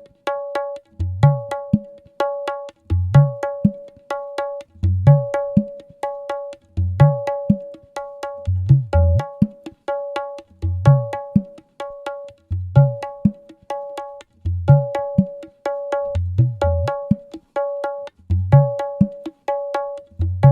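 Sound-check music for testing line array speakers: a percussion loop of sharp, pitched tapping strokes over deep bass drum hits whose pitch bends upward. The pattern repeats about every two seconds.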